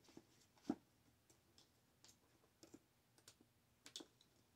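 Faint, scattered clicks and light handling noises from packing a GPS unit and its charger cords into a small black carrying case, with the loudest click under a second in.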